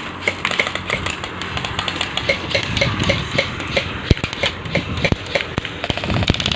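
Airsoft guns firing during a game: a quick, uneven run of sharp clicks and pops from several guns.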